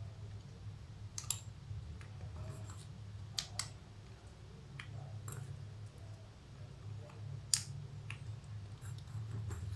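Scattered sharp plastic clicks, about six of them at irregular intervals, from mechanical keyboard switches and keycaps being handled and fitted. A faint steady low hum sits underneath.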